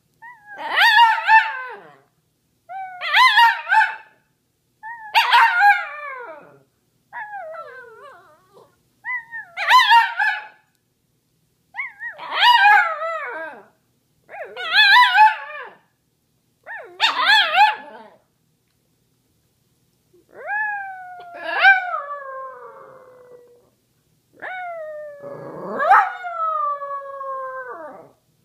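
Small dog howling: a run of short, wavering howls about every two seconds, then two longer howls that slide down in pitch.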